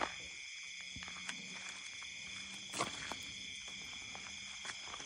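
Steady high-pitched chorus of night insects, with a low hum under it and a few sharp clicks, the loudest at the start and again just under three seconds in.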